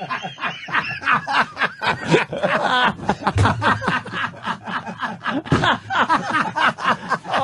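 Several men laughing hard together, bursts of snickering and chuckling overlapping throughout.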